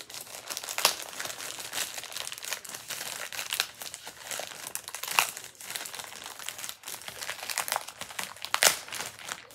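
Thin plastic packaging bag crinkling and rustling as it is handled and opened, irregular throughout with a few sharper crackles.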